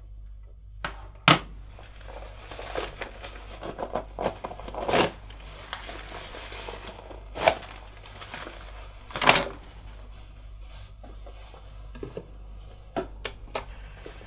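Scattered clicks, knocks and rustles of objects being picked up and handled at a desk, with a sharp click about a second in and louder knocks around five, seven and nine seconds in, over a low steady hum.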